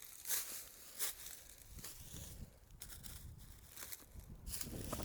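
Footsteps crunching and rustling through dry leaves and brush on a steep slope, uneven steps about once a second.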